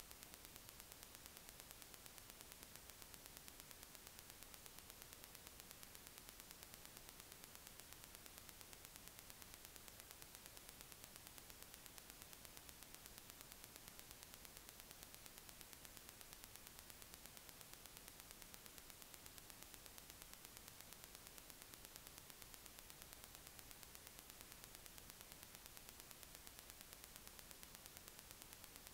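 Near silence: a faint, steady hiss from the recording's own noise floor.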